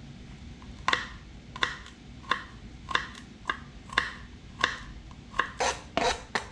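Food being chopped or crushed: a series of sharp strikes, about one or two a second, coming faster near the end.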